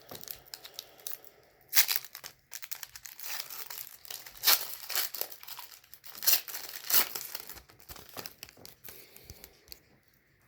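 Trading-card pack wrapper being torn open and crinkled by hand: irregular crackling and tearing with several sharper bursts, dying down near the end.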